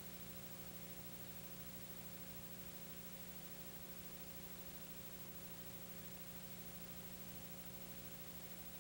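Steady hiss with a low electrical hum and nothing else: the empty sound track of a transferred silent film.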